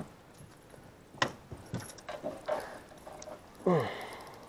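A sharp click a little over a second in and a few faint knocks, then a man's drawn-out grunt, falling in pitch, near the end while he strains against a big fish on the rod.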